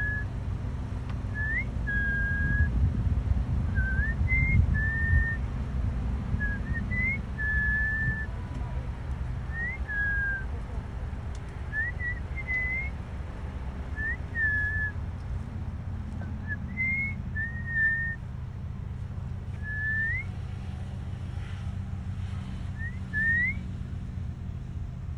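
A person whistling softly in short notes, each a quick upward flick followed by a brief level tone, repeated about every two seconds to call a peacock closer. A low rumble runs underneath.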